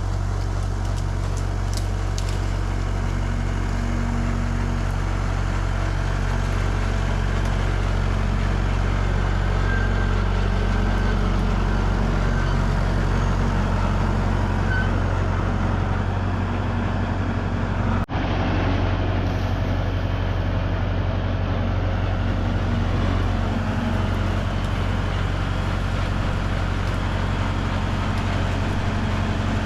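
A vehicle engine running steadily at an even speed, with a brief cut-out about two-thirds of the way through.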